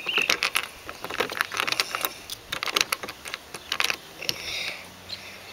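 Lego plastic pieces being handled and shifted on a baseplate: an irregular run of small plastic clicks and clatters.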